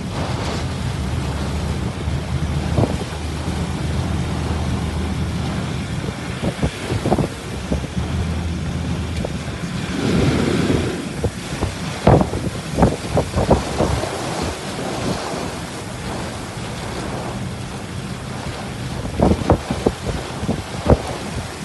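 Heavy rain pouring with hailstones hitting hard surfaces: a steady rush of rain and wind on the microphone, with sharp clattering hits that come thickest about halfway through and again near the end.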